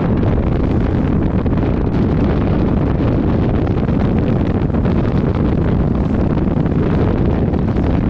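Loud, steady wind rush buffeting the microphone of a bow-mounted camera on a Stabicraft 2050 boat running at speed over choppy water, deep and rumbling, with no clear engine note standing out.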